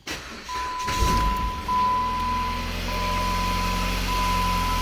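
A 2011 Jeep Compass's 2.4-litre four-cylinder engine catches about a second in and settles into a steady idle, now starting after the crank-no-start fault was traced to a corroded power wire feeding the auto shutdown relay. A dashboard warning chime beeps over it about once a second.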